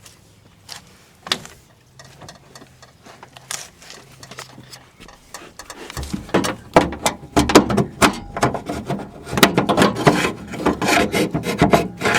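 Hands working car door hardware: scattered clicks at first, then from about halfway a loud, busy run of scraping, rubbing and quick clicks and knocks.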